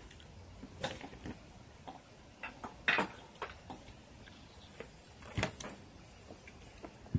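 Scattered, irregular clicks and light taps of hands working a mechanical keyboard and computer, the sharpest about three seconds in.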